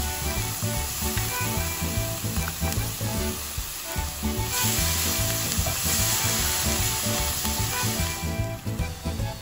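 Spinach and chopped spring onion sizzling in a hot non-stick pan, with a wooden spatula stirring them near the end. Light background music plays underneath.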